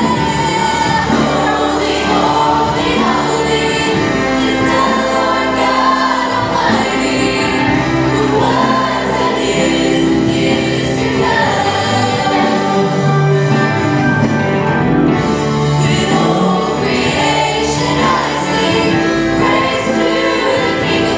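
Youth choir of mixed voices singing into microphones, with instrumental accompaniment.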